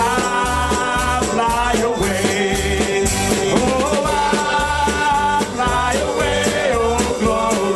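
Gospel hymn sung by a man into a microphone, with live band accompaniment and a steady beat.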